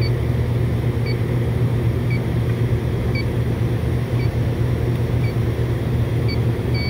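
Electronic refrigerant leak detector ticking slowly, about once a second, then switching to a continuous high tone right at the end as its probe nears the compressor's service valve, which the technician takes for a leak there. Under it, a loud steady low machinery hum.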